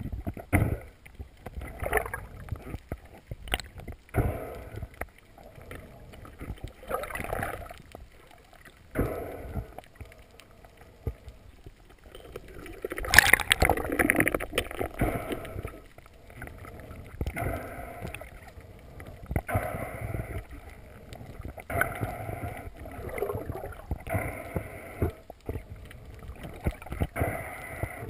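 Muffled sound of water moving around a camera in a waterproof housing as a spearfisher swims, with uneven rushes every couple of seconds. The loudest stretch comes about halfway through, while he handles the speargun.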